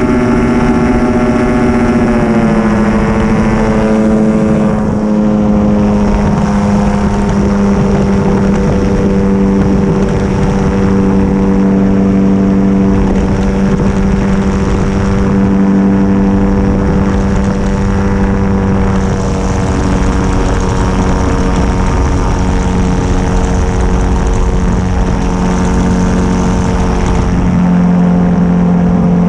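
Yamaha Phazer snowmobile engine driving an ultralight's propeller through a reduction gearbox, heard from on board in flight as a loud, steady drone. The pitch drops a step about two seconds in as the engine slows, then holds. Wind rushes over the microphone throughout.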